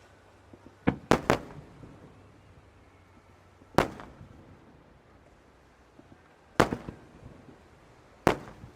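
Aerial fireworks shells bursting: a string of sharp bangs, a close pair about a second in, then single ones two to three seconds apart, each trailing off in echo.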